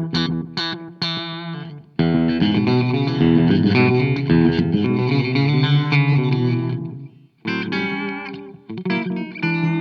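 Electric guitar played through an Old Blood Noise Endeavors Black Fountain oil can delay with the feedback turned up, the repeats smearing together like a big, overdone spring reverb. Quick picked notes give way about two seconds in to a dense wash of chords that stops abruptly past the middle, then picked notes start again.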